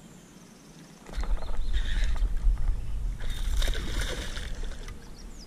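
A small hooked bass splashing and thrashing hard at the water's surface beside an aluminium boat, starting about a second in, over a low rumble.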